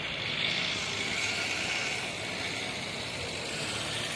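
Steady background noise of vehicles: an even, constant hiss over a low rumble.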